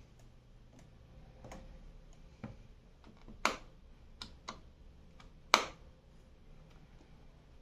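A scattering of short, hard clicks and knocks, with two much louder sharp clicks about three and a half and five and a half seconds in, over a low steady hum.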